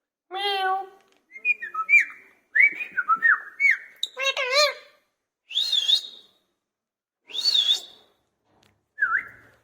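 Indian ringneck parrot whistling and warbling in a series of short separate bursts, some wavering up and down in pitch, with brief pauses between them.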